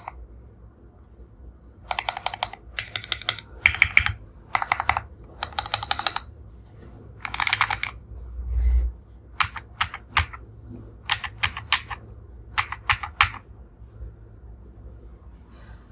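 Typing on a mechanical keyboard with Jerrzi Rouge linear switches in an RK61 with a custom aluminium case and plate. It starts with quick bursts of keystrokes, then slower, separate key presses, with pauses at the start and near the end. A dull low bump comes about halfway through.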